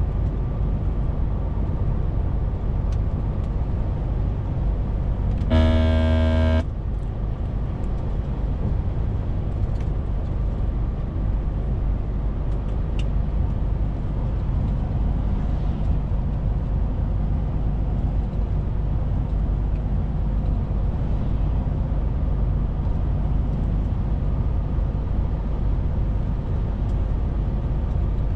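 Truck driving, its engine and tyres making a steady low rumble. About six seconds in, a horn sounds once for about a second.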